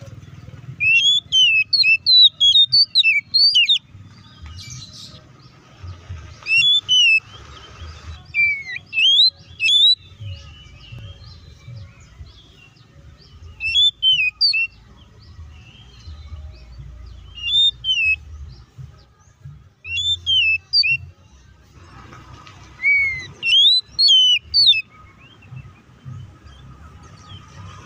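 Oriental magpie-robin (kacer) singing in loud bursts of sharp, fast up-and-down whistled notes, each phrase lasting a second or a few, with short pauses between. This is the bird's excited, full-voiced fighting song, used to provoke other kacers into singing.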